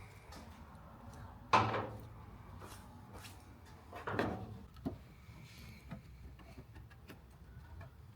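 Two sharp knocks about two and a half seconds apart, the first the louder, each with a brief rattling tail, amid lighter clicks and taps of parts being handled.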